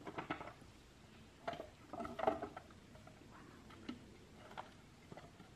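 A handful of irregular light knocks and clatters, about six spread over several seconds, with a cluster of them in the second and third seconds.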